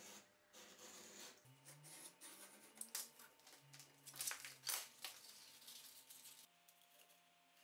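Sandpaper being cut with a utility knife along a metal ruler and handled: faint scraping and rustling, with a few sharp crackles of the paper strip a few seconds in.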